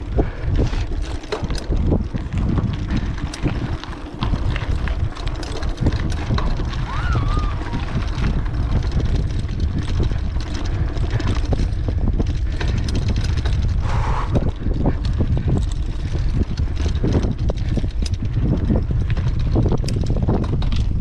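Strong wind buffeting the microphone during a bicycle ride: a continuous low rumble with scattered small clicks and rattles.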